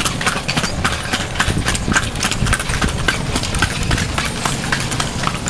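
A carriage horse's hooves clip-clopping on a paved street as it pulls a kalesa, over a steady low rumble from the moving carriage.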